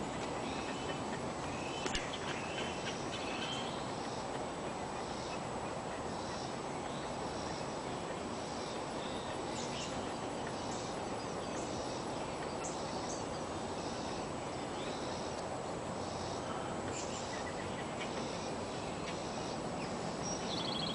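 Steady background noise with faint, scattered bird chirps.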